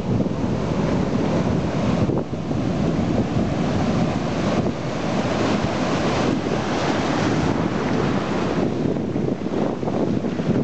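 Ocean surf breaking and washing up the beach, a steady rush that grows brighter and fuller around the middle as a wave breaks and foams in, with wind buffeting the microphone.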